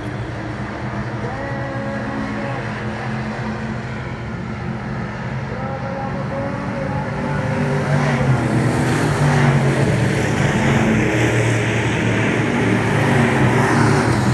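Several Thunder Bomber stock-car engines running together, their pitches rising and falling as they rev. The sound gets louder from about eight seconds in.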